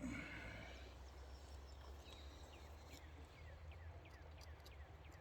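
Quiet riverside ambience: a steady low rumble of moving water, with a bird repeating short falling chirps, about two to three a second, and a short noise right at the start.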